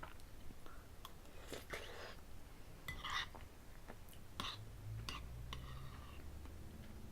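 Close-up chewing and mouth sounds of someone eating: irregular wet smacks and clicks, over a low steady hum.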